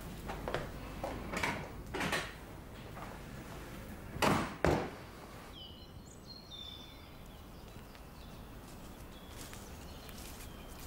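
Footsteps walking away, then a door pulled shut with two loud knocks a little over four seconds in. After that comes quiet woodland background with a few short high bird chirps.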